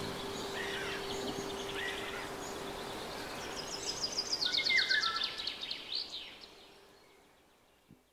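Birds chirping and singing, with a fast trill loudest around the middle, over a steady low hum; the birdsong fades out over the last couple of seconds.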